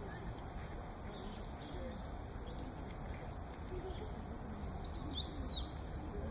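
Meadow bunting singing: a quick phrase of sharp, high notes near the end, with fainter notes earlier.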